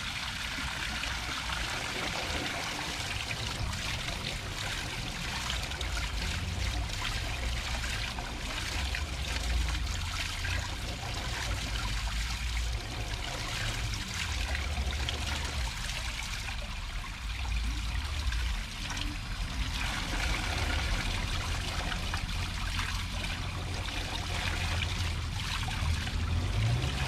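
Water trickling steadily into a garden pond, with a low rumble underneath.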